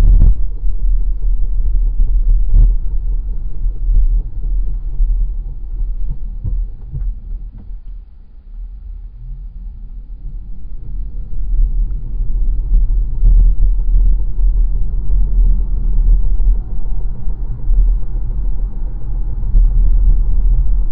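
A 2021 Volvo XC40 Recharge on the move: a heavy low rumble with a noise from the rear brakes, whose pads rub after the brakes seize and let go. The rumble drops about eight seconds in, then a rising whine follows as it picks up again.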